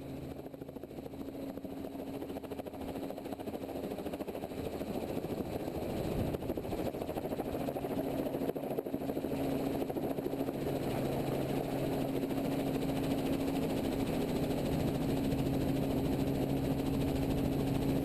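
Helicopter engine and rotor running with a steady hum, growing steadily louder.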